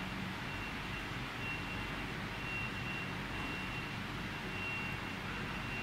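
Steady background hum and hiss, with a faint high-pitched beep repeating about once a second.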